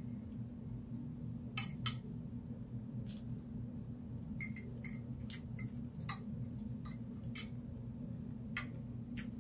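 Eating sounds at a plate: scattered sharp clicks and a few light clinks, over a steady low hum.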